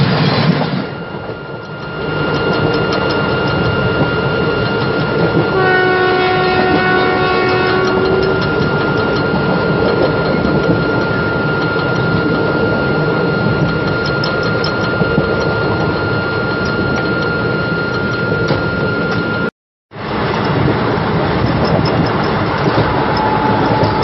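Express train running at speed, heard from a passenger coach: wheels rumbling and clicking over rail joints while the WAM-4 electric locomotive's horn sounds ahead in a long held note, joined by a fuller chord for about three seconds around six seconds in. The sound cuts out for a moment about twenty seconds in.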